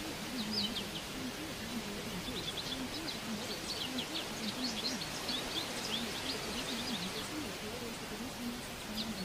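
Birds chirping in quick high calls, thickest in the middle, over a steady hiss, with a low, faint voice running underneath.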